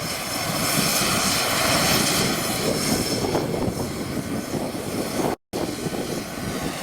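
Medical helicopter on the ground with its turbine engine and rotor still running just after landing: a steady, loud rotor-and-turbine roar. The sound drops out for a split second about five and a half seconds in.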